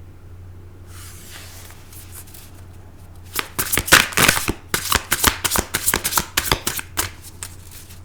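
Tarot deck being shuffled by hand: quiet at first, then a quick run of crisp card snaps and flutters starting about three seconds in that stops shortly before the end.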